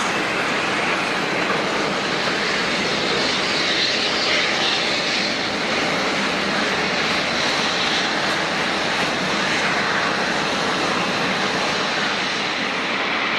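Jet engines of a Japan Airlines Airbus A350, Rolls-Royce Trent XWB turbofans, running with a steady, loud rushing noise as the airliner moves on or near the runway.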